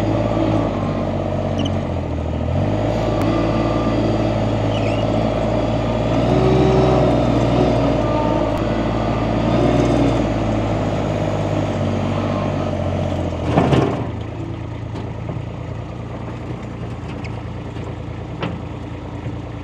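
Compact farm loader's engine running under working load, its revs rising and falling. A short clunk comes about 13–14 seconds in, after which the engine settles to a lower, quieter run.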